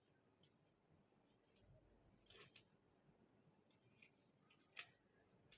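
Near silence with a few faint, short clicks and rustles of small objects being handled, the loudest about five seconds in.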